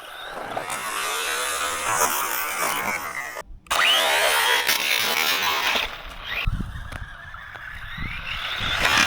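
Electric RC car's motor whining as it drives, mixed with tyre and ground noise. The sound cuts out abruptly about three and a half seconds in, then comes back with the motor's whine rising as it speeds up.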